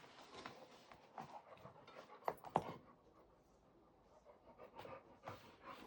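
Dog panting softly, with scattered soft sounds and two sharper clicks a little over two seconds in.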